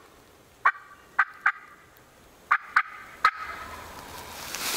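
Turkey calling made by a hunter: two quick series of three short, sharp, high notes, the second series about a second after the first, some of the notes trailing briefly into a held tone.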